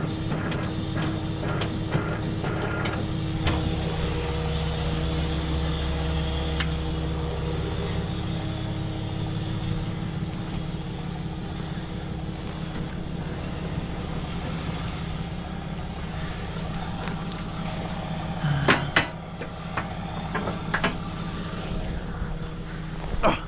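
Tow truck's engine running at a steady speed to drive the winch, a continuous mechanical drone. About three seconds in, a deeper hum joins for several seconds. A few sharp knocks come near the end.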